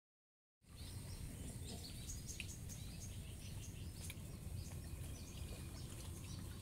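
Faint outdoor dawn ambience: small birds chirping many times over a low steady rumble. It starts after about half a second of silence.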